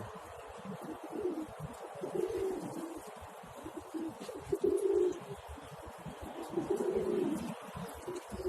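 Pigeons cooing: low, repeated hooting coos, a phrase every second or two.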